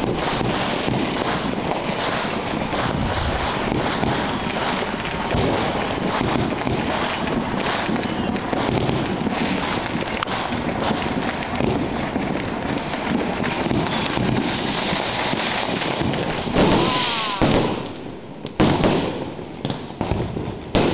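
Many fireworks going off close by in a dense, continuous barrage of rapid cracks and bangs, with a few louder separate bangs near the end.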